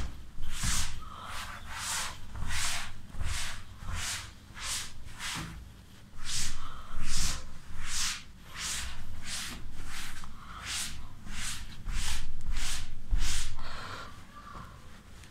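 Cloth wiping a chalkboard in quick back-and-forth strokes, a swish about twice a second, stopping shortly before the end.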